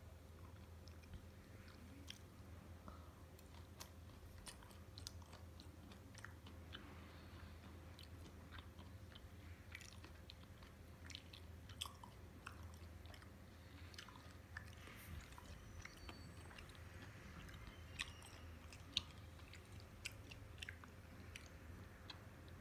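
Faint close-up chewing of raw rockfish and mullet sashimi: soft wet mouth clicks scattered throughout, with a few sharper ones near the end, over a steady low hum.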